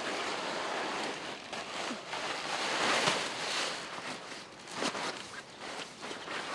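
Rustling and crackling of a carp unhooking mat as it is folded up around a landed grass carp, with a louder spell of handling about halfway through.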